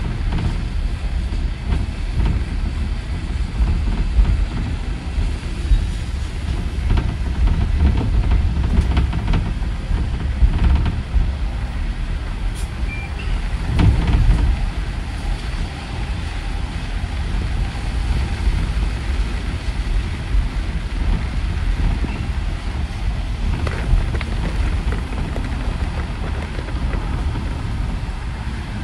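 Interior noise of a city bus driving on a wet road: a steady low rumble of the ride with tyre hiss, and a few knocks and rattles from the cabin, the loudest about halfway through.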